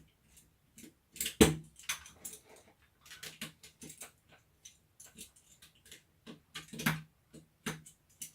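Irregular clicks, taps and small rattles of a plastic cordless-screwdriver housing and its small screws being handled and worked apart, with a sharper knock about a second and a half in and another cluster near the end.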